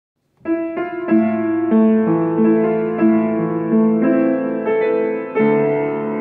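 Solo piano playing chords with a melody on top, starting about half a second in after a moment of silence.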